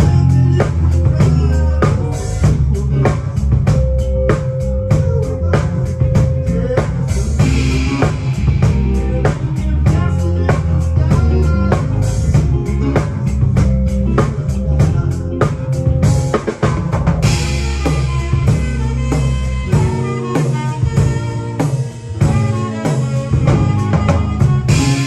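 Live band playing a steady groove, with the drum kit loudest and close: kick drum, snare and cymbals struck in an even rhythm over bass guitar and keyboard.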